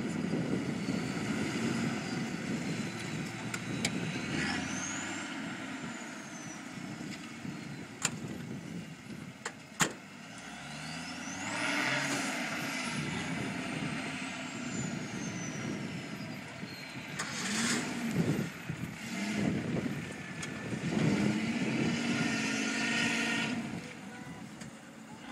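Off-road 4x4 engines revving, the engine note rising and falling again and again as they climb the quarry bank, with a couple of sharp clicks about eight and ten seconds in.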